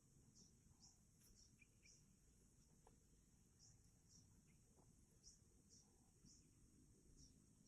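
Near silence: faint outdoor ambience with short high chirps repeating irregularly about twice a second over a steady high hiss.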